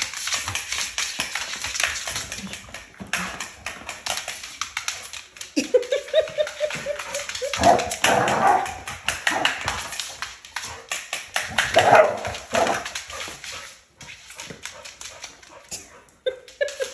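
A young dog barking and whining excitedly at metal kitchen tongs, amid many sharp clicks. A drawn-out whine rising in pitch comes about five and a half seconds in, the loudest barks around eight and twelve seconds in, and short whines near the end.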